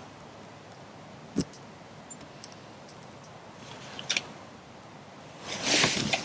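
Small dry twigs being handled and fed into a small wood-burning twig stove: a sharp snap about a second and a half in, a couple of light clicks later, and a louder rustle of sticks near the end.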